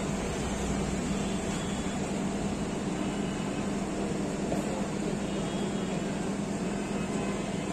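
A steady mechanical hum with one constant low tone, even throughout.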